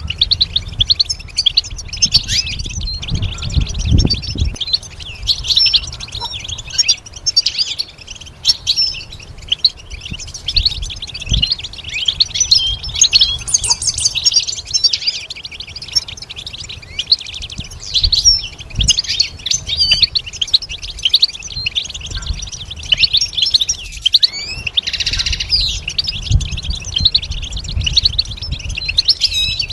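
European goldfinch singing: a long, fast run of twittering, tinkling notes without a break, with a buzzier drawn-out phrase near the end. Occasional low thumps sound underneath.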